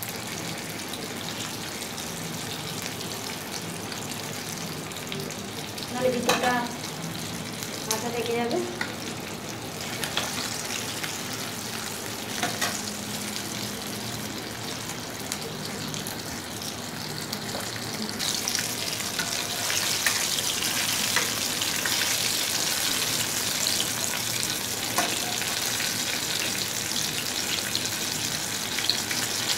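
Flour-coated chicken drumstick shallow-frying in oil in an aluminium kadai on a low flame, sizzling steadily at the half-frying stage. The sizzle grows louder and brighter about two-thirds of the way through.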